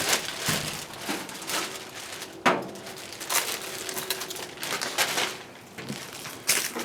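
Handling noises from a stainless steel cabinet side panel being moved and turned: rustling with several scattered knocks and scrapes.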